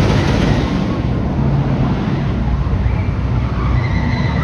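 Rushing wind buffeting the microphone over the steady rumble of a steel roller coaster train running along its track, heard from on board an Intamin wing coaster.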